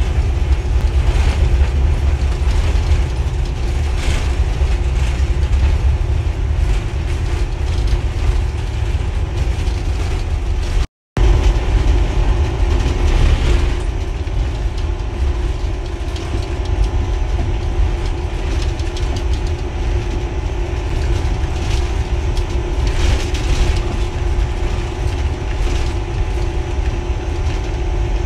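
Steady running noise inside a diesel-electric locomotive's cab at speed: a deep engine rumble with a steady hum over it, and a few brief clacks now and then. The sound cuts out for a split second about a third of the way through.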